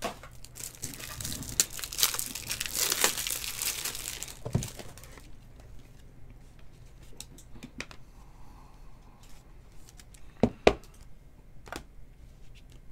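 Trading-card pack wrapper being torn open and crinkled for the first few seconds, then quieter handling of the cards with light clicks and two sharp taps a couple of seconds before the end.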